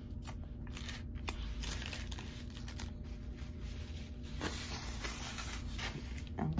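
Paper food wrapper and a napkin or condiment packet being handled: a run of rustling and crinkling with bits of tearing.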